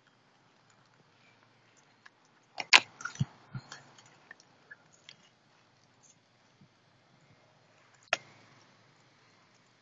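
A cat chewing and eating from a plastic plate, with small clicks throughout. A burst of sharp knocks and clicks comes about two and a half seconds in, and one more sharp knock near the end.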